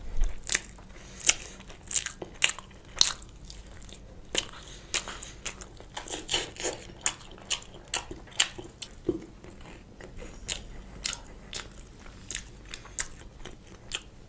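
Close-miked eating: crisp bites and crunchy chewing of crispy fried chicken and cheese-topped toast. A few loud, sharp crunches come in the first three seconds, followed by a steady run of smaller crackly chewing crunches.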